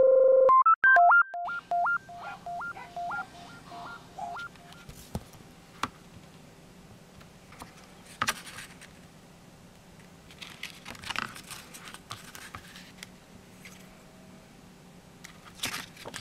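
A short electronic beeping jingle: a loud opening tone, then a quick run of beeps hopping between two pitches for about four seconds. Then paper rustling as the pages of a CD booklet are turned by hand, with louder rustles at a few page turns.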